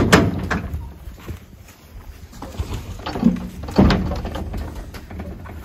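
Clanks and knocks of a metal livestock trailer's door being unlatched and swung open, loudest right at the start with another sharp knock about four seconds in, over a low rumble of wind on the microphone.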